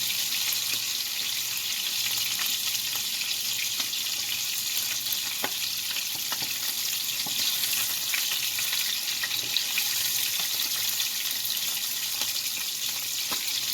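Meatballs frying in oil in a pan, a steady sizzle with scattered small pops and crackles.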